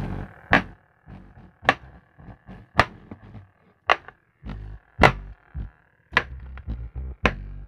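Beat-driven music played through a subwoofer and speaker on a home-built STK 2.1 amplifier under test: sparse, sharp percussive hits and deep bass thumps, with short quiet gaps between them.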